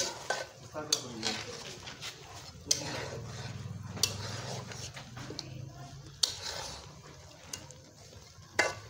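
Metal spoon stirring chicken curry in a metal karahi over a wood fire, with several sharp knocks of the spoon against the pan spaced a second or two apart, over the low steady sound of the curry cooking.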